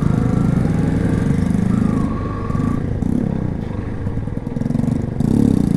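Motorcycle engine running at low road speed as the bike is ridden. It eases off for a few seconds in the middle and picks up again near the end.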